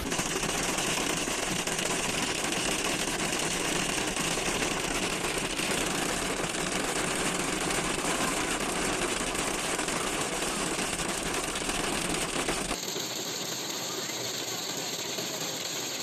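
Hail pelting down hard, a dense, steady rattling clatter; near the end it cuts abruptly to a thinner-sounding stretch of the same downpour.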